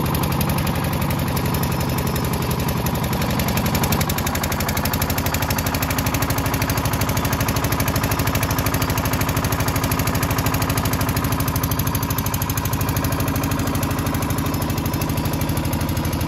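Small fishing boat's outboard motor running steadily under way, with a fast, even beat; its pitch shifts slightly about four seconds in.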